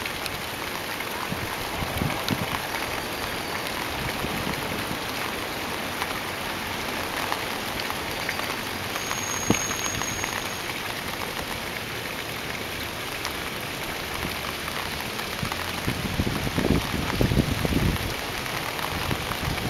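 Steady rain falling into a puddle, an even hiss with scattered patters of drops hitting the water. A few low buffets come in near the end.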